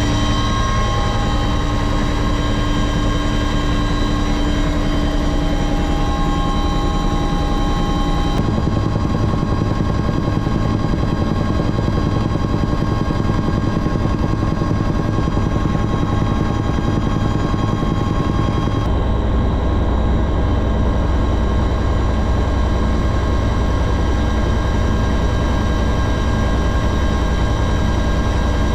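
Helicopter in flight heard from on board: a steady low rotor and engine drone with several high, constant turbine whine tones. The mix of tones shifts abruptly twice, about 8 and 19 seconds in.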